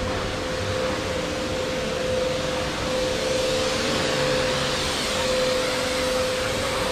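A steady machine hum holding one constant tone over an even wash of street noise, with no breaks or changes.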